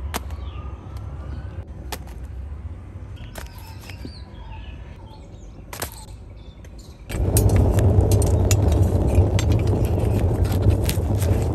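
Faint bird chirps over a quiet background, then about seven seconds in a loud, steady low rumble from the open clay tandoor suddenly starts, with many sharp metal clicks and scrapes as an iron rod works the baked kulchas off the tandoor wall.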